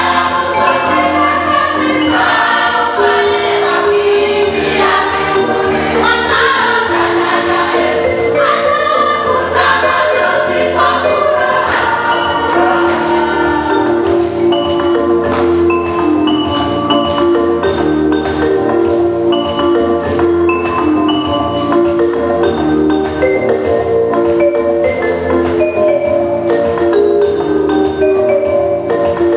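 Gospel choir singing over an instrumental backing with a steady bass line. In the second half the voices give way to a passage of short, bright, stepped notes over the bass.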